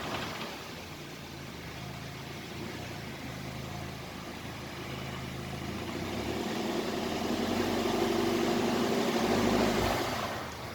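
Skoda Kodiaq's engine running with the car moving slowly; the engine note swells about six seconds in and eases off near the end. The car is one whose seven-speed DQ500 DSG gearbox the owner complains of for crackling and knocking.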